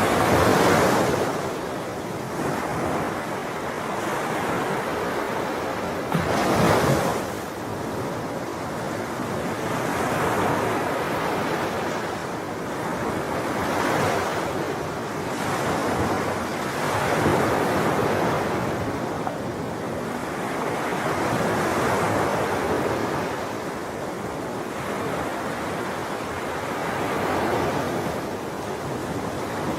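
Sea waves washing onto a shore in a steady wash that swells and ebbs every few seconds. The biggest surges come right at the start and about seven seconds in.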